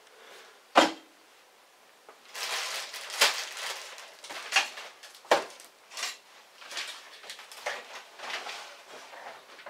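Cardboard box and its packing paper being rummaged through and crumpled, in uneven rustling bursts with a few sharper taps. A single sharp knock comes about a second in.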